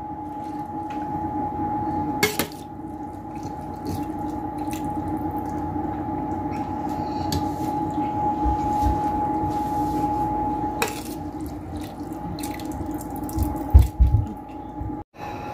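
Metal spoon scooping rice into a glass baking dish, with a couple of sharp clinks against the glass and a few dull thumps near the end, over a steady electrical hum from a kitchen appliance.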